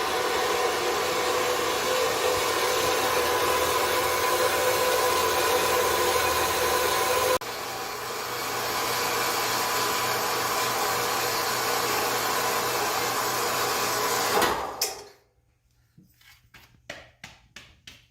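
Horizontal metal-cutting bandsaw running through steel stock, a steady machine sound with a whine. It drops suddenly in level about seven seconds in and cuts off about fifteen seconds in, followed by a few light clicks and knocks.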